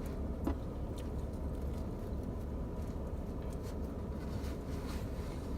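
Steady low background hum with a few faint clicks and small rustles.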